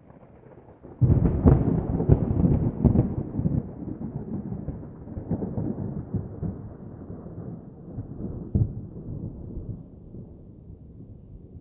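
Distant thunder: a deep rumble breaks in suddenly about a second in, crackles for a couple of seconds, then rolls on and slowly fades away.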